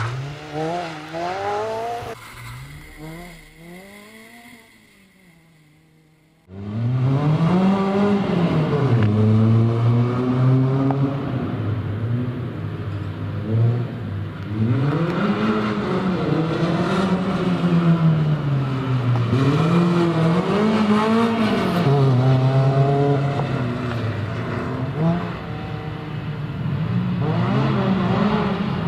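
Renault Clio rally car's engine pulling away and fading into the distance. Then, after a sudden cut, the engine is loud, revving up and down over and over as the car is driven hard around a tight course, its pitch rising and falling every couple of seconds.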